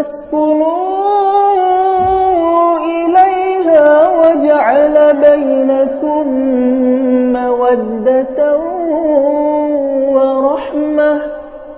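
Qur'an recitation: a single reciter's voice sustains one long, ornamented melodic phrase, its pitch wavering and turning, for about eleven seconds before it breaks off near the end.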